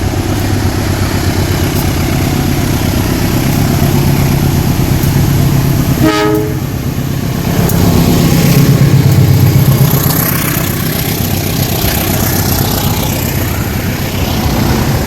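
GE diesel-electric locomotive running loud under power, with a short horn blast about six seconds in. The engine grows louder around eight to ten seconds as the locomotive passes.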